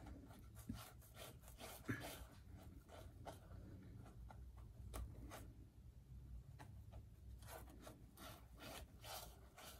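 Faint, scratchy rubbing of a bristle brush dragging thick white oil paint across a canvas, in irregular strokes, with one light tap about two seconds in.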